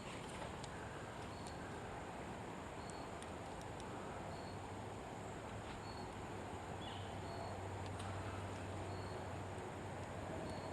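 Quiet creek-side outdoor ambience: a faint steady hiss with short, high chirps repeating every second or so, and a few faint clicks.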